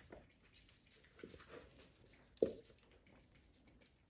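Faint scuffling and patter of young kittens playing on a hard floor and a cardboard scratcher, with one brief louder sound about two and a half seconds in.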